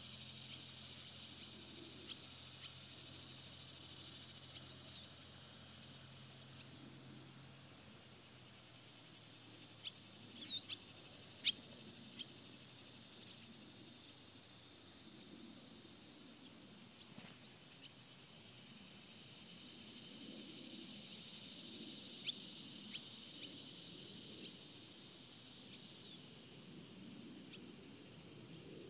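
Steady chorus of field insects, a thin high-pitched buzzing hum. A few brief sharp chirps stand out about ten to twelve seconds in and again a little past twenty seconds.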